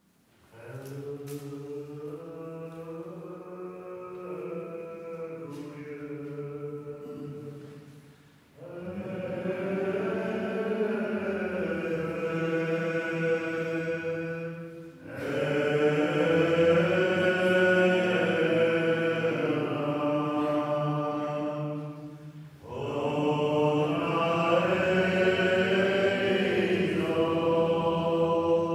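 Slow sung chant in long held phrases. The first phrase is quieter, and fuller phrases follow from about 8, 15 and 22 seconds in, each after a brief pause.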